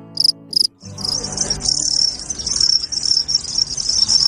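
Crickets chirping: separate high chirps about twice a second, then from about a second in a dense, continuous chorus of many crickets trilling.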